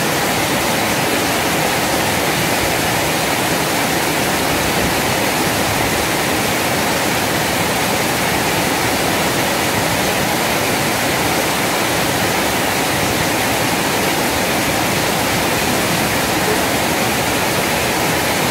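Water pouring down a small weir spillway into a fast river current: a steady, unbroken rush.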